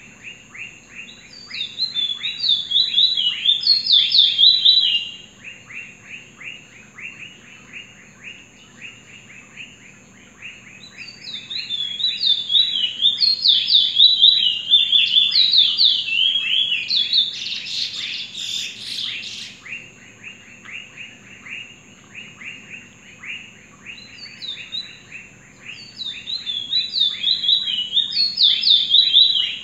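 Caged Trinidad bullfinch (chestnut-bellied seed finch) singing: three loud bursts of rapid warbled song, the middle one longest and ending in a buzzy rush, over a fast steady ticking.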